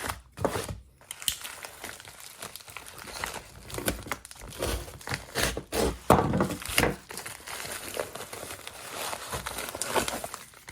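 Parcel packaging being torn open and crinkled by hand: an irregular run of crinkles, rips and rustles, loudest about six seconds in.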